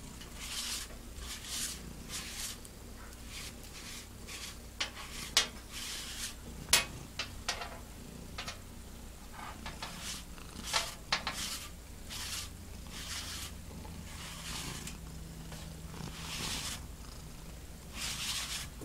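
A domestic cat purring steadily while a sticky lint roller is rolled over its fur in repeated short, crackling sweeps. Two sharp clicks land around the middle.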